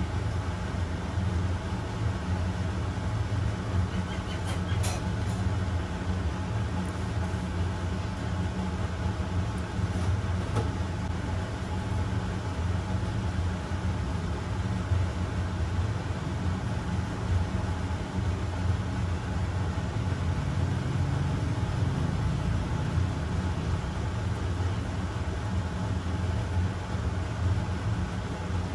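A steady low mechanical hum and rumble, even in level throughout, with a few faint clicks about five seconds in and again around ten seconds.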